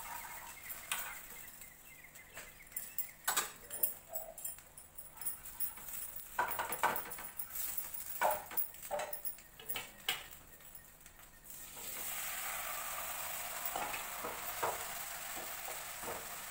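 Spatula scraping and tapping against a frying pan on a gas stove in short, irregular strokes; about twelve seconds in a steady sizzling hiss starts and carries on.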